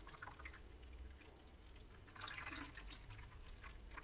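Water pouring slowly from a plastic bottle into the narrow filling port of a jacketed fermenter's cooling jacket, heard as faint drips and trickling with a short gurgle about two seconds in, as the jacket fills.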